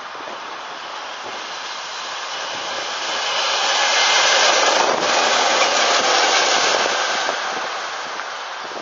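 ChME3 diesel shunting locomotive, with its six-cylinder diesel engine, passing close by on the rails. The noise of the engine and wheels swells as it approaches, changes sharply as it passes about five seconds in, then fades as it moves away.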